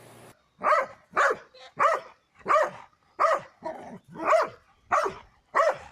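A dog barking repeatedly: about nine short barks at an even pace of a little under two a second.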